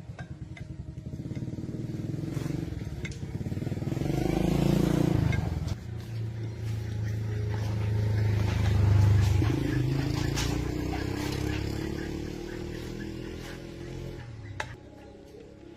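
A motorbike running, growing louder over the first several seconds, then its pitch falling and the sound fading away.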